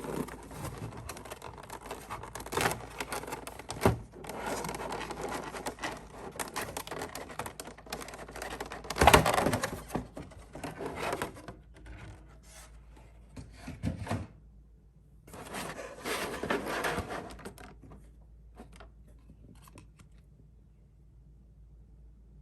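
Hands handling and opening a Pokémon TCG premium collection box: irregular rubbing, scraping and rustling of the packaging, loudest about nine seconds in, with a brief pause, one more burst, and near quiet in the last few seconds.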